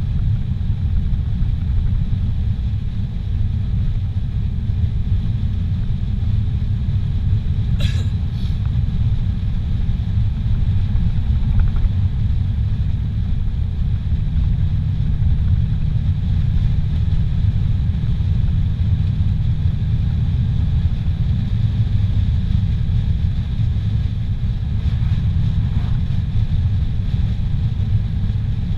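Steady low rumble of a car cruising on a highway, engine and tyre noise heard from inside the cabin, with one short click about a quarter of the way through.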